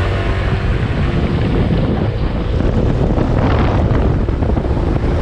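Wind rushing over the microphone of a moving motor scooter, with the scooter's small engine running underneath.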